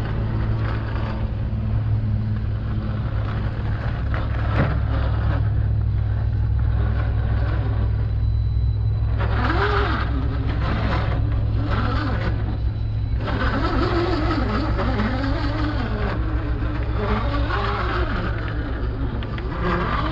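Radio-controlled scale crawler's electric motor and gears whining, the pitch rising and falling over and over with the throttle from about halfway in, over a steady low rumble.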